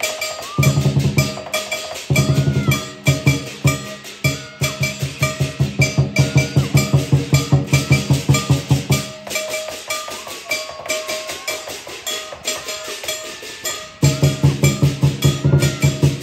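Teochew lion dance percussion: a lion dance drum beating fast and steady under crashing cymbals. The drum drops away about nine seconds in, leaving the cymbals, and comes back in strongly near the end.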